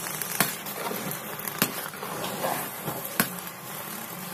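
Kitchen utensils knocking: three sharp taps, about a second and a half apart, with a couple of fainter ones between, over a steady low hiss.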